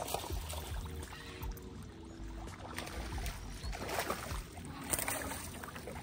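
Quiet water lapping and trickling against a small boat's hull, with a low rumble and a faint steady hum underneath.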